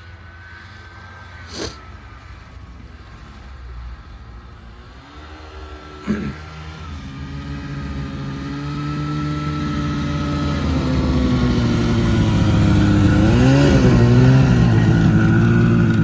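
Snowmobile engine running and growing steadily louder from about a third of the way in, with a brief dip and rise in pitch near the end. A sharp click comes about a second and a half in, and another about six seconds in.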